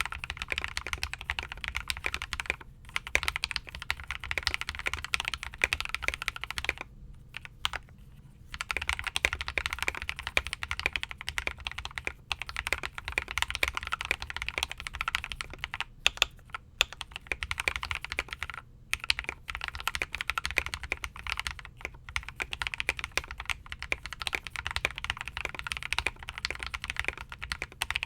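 Fast, continuous typing on a Logitech Pro X mechanical keyboard with lubed Gateron Pro Milky Yellow linear switches, stock keycaps and foam and tape mods inside the case. The keystrokes come as a dense run of clacks, broken by a few short pauses, one of them lasting over a second about a third of the way in.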